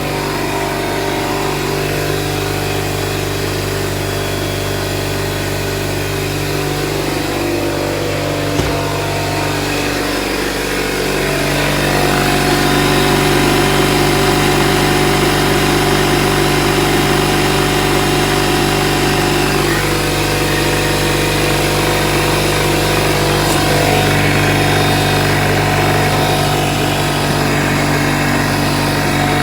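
Two electric air compressors running together, a steady motor hum with piston-pump chatter as they build pressure toward about 100 psi. The sound shifts and gets somewhat louder about twelve seconds in.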